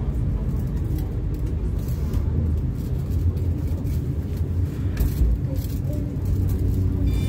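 MTR Kwun Tong Line C-Train running between stations, heard from inside the car: a steady low rumble of wheels on track and running gear.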